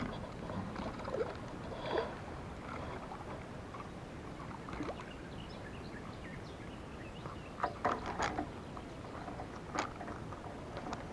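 Spinning reel being handled and wound on a fishing rod: a few short clicks and rattles, a cluster of them about eight seconds in, over steady outdoor background noise.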